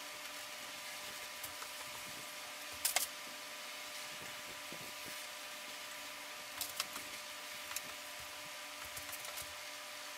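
Steady hiss and faint hum of room tone, with a few faint sharp clicks: the loudest pair about three seconds in, more around seven seconds and a light run of ticks near the end.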